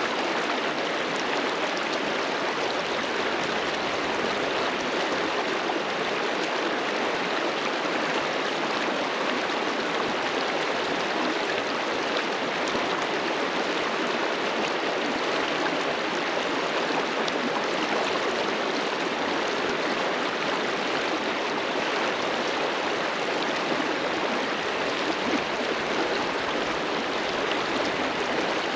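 River water rushing over rocks: a steady, even rush of flowing water.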